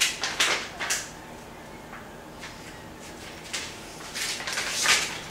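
A few short scuffs and knocks, three close together in the first second and two more about four to five seconds in, over a faint steady hum.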